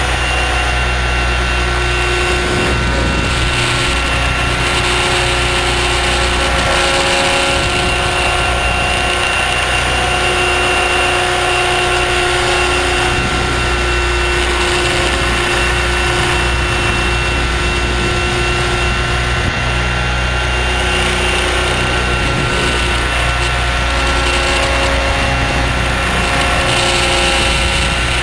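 Align T-Rex 600 ESP electric RC helicopter in flight, heard from a camera mounted on the helicopter itself: a loud, steady rotor drone with several held whining tones over it.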